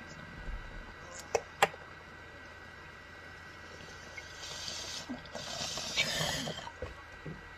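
Hit on a glass beaker bong: two sharp clicks a little over a second in, then from about four seconds in a rush of bubbling water and air lasting about two and a half seconds as the bowl is pulled and the smoke-filled tube is cleared.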